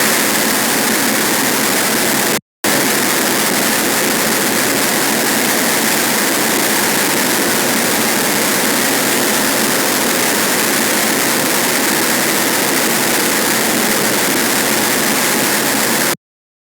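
Harsh noise wall: a loud, dense, unchanging wall of distorted static with little deep bass. It drops out for a moment about two and a half seconds in, then cuts off abruptly near the end.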